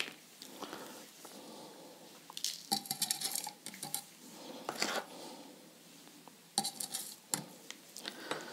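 A spoon clinking and scraping lightly against a glass while stirring soil, water and baking soda for a home soil pH test. The clinks come in two short clusters, one about a third of the way in and one near the end.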